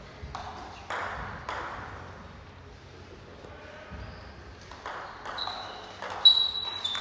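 Table tennis ball clicking off the paddles and table: a few taps spaced about half a second apart in the first second and a half, then a quick run of sharp clicks in the last two seconds with the loudest hit near the end. A short high squeak sounds alongside the last clicks.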